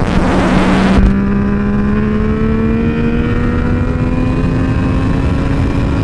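Motorcycle engine running under load, its pitch slowly climbing as the bike accelerates, with wind noise on the onboard microphone; the wind rush is heaviest in the first second and drops away suddenly.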